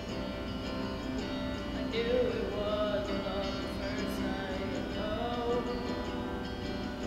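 A young voice singing a slow melody over a strummed acoustic guitar.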